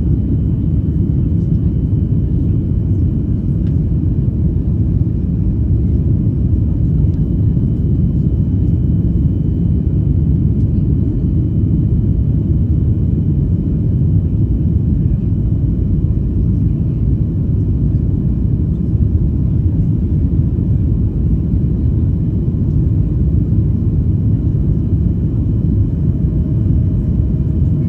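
Cabin noise of a Boeing 737 MAX 8 climbing after takeoff: a steady low rumble of its CFM LEAP-1B engines and the airflow, with a faint thin whine held above it.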